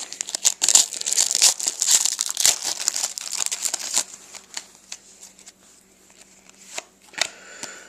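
Hockey card pack wrapper crinkling and tearing as it is pulled open, dense crackling for about four seconds, then a few quieter, scattered rustles and clicks.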